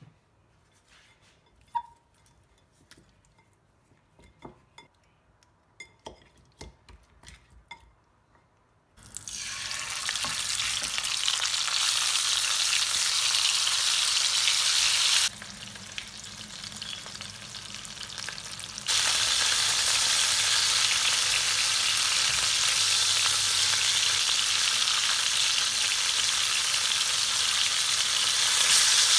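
Faint scattered clicks and taps of kitchen utensils, then about nine seconds in a sudden, steady sizzle of food frying in hot oil in a pan. The sizzle falls quieter for a few seconds past the middle, then comes back as strong.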